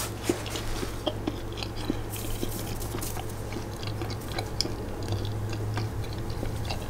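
A person chewing a mouthful of naan-bread pizza close to the microphone: small wet mouth clicks and smacks at an irregular pace, over a steady low hum.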